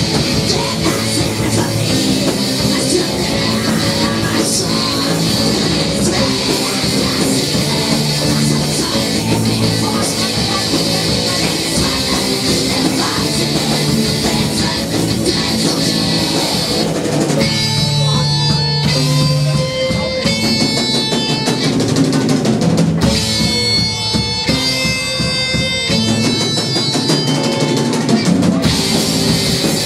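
Live rock band playing, with drums and electric guitar. A little over halfway through the full sound thins out into a passage of clear held notes, and the full band comes back in near the end.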